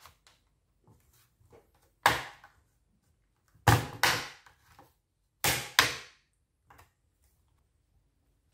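Plastic snap-fit clips of an HP ProBook 450 G5 laptop's top case cracking loose as the case is pried up from a corner off the base. There are five sharp snaps: one about two seconds in, then two pairs close together around four and six seconds in, with faint ticks of plastic between them.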